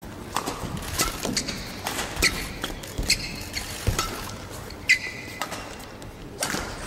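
Intro sound effects: a string of sharp clicks and ticks at irregular spacing, mixed with short pinging tones, the longest ping ringing for about half a second around five seconds in.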